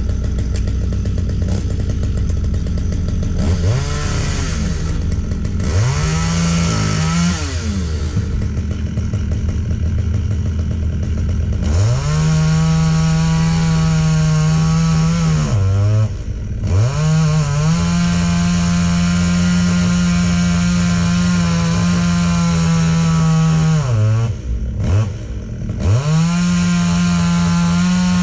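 STIHL MS 194 T two-stroke top-handle chainsaw idling, then blipped twice and run at full throttle in long stretches of several seconds, dropping back to a lower speed briefly between them.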